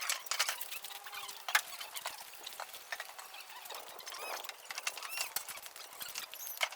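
Irregular clicks and taps, mixed with a few short high chirps or squeaks.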